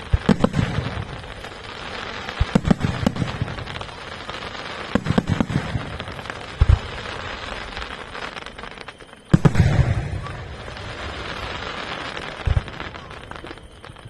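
Aerial fireworks display: shells bursting in groups of sharp bangs every two to three seconds, with crackling in between and the biggest burst about nine seconds in.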